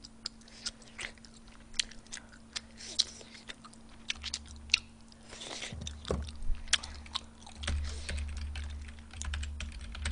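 A woman chewing a mouthful of tteokbokki close to the microphone, with scattered sharp clicks. A low rumble joins from about four seconds in.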